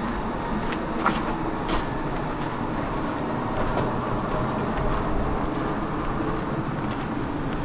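City bus running, a steady rumble of engine and road noise with a few light clicks and rattles.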